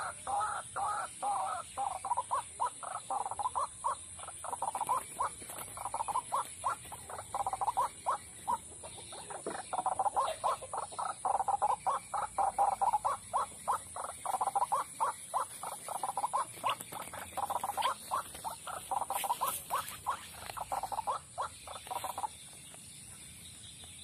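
White-breasted waterhen (ruak-ruak) calling: a long, fast run of short croaking notes repeated a few times a second, which stops abruptly about 22 seconds in.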